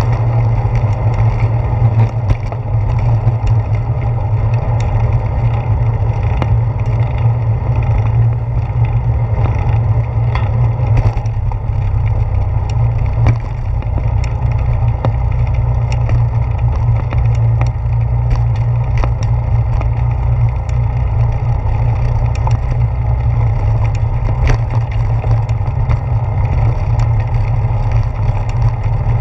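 Bicycle ride heard through a handlebar-mounted GoPro Hero 4 in its housing: a steady low rumble of tyre and handlebar vibration, with irregular knocks and rattles as the wheels roll over the path and then, about halfway in, over the planks of a wooden boardwalk.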